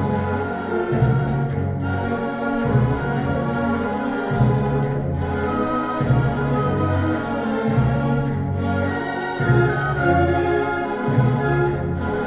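Classical orchestral music played back through a pair of Bowers & Wilkins Formation Duo wireless speakers, with low notes changing about once a second.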